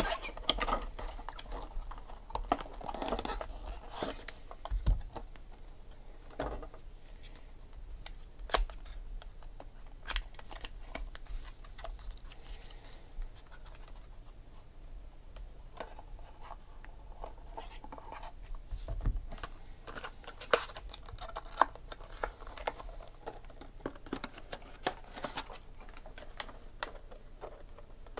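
Hands opening a foil-wrapped trading-card pack and handling the cards: rustling and scraping of wrapper and card stock, with many scattered sharp clicks and taps as the cards are flicked, stacked and set down.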